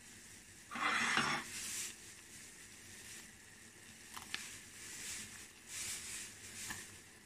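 Water boiling in a steel pot as mushroom pieces are pushed in from a bowl with a wooden spatula: bubbling and splashing, loudest about a second in, with a couple of light knocks.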